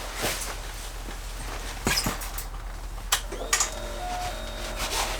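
A few sharp clicks, as of the ignition key going in and turning on a 2012 Triumph Street Triple 675R. About three seconds in, a steady electronic whine starts as the ignition comes on, with a short beep a second later.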